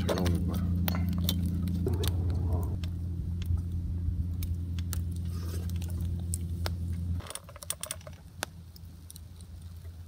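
Wood fire crackling and popping, with scattered sharp snaps from the burning logs. Under it, a steady low hum is the loudest sound and cuts off suddenly about seven seconds in.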